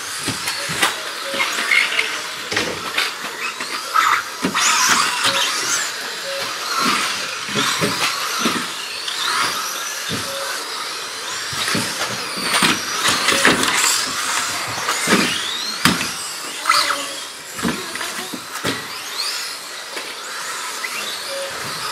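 Several 2WD electric R/C buggies racing. Their motors and gears whine high, rising and falling as they accelerate and slow, with frequent sharp knocks and clacks throughout.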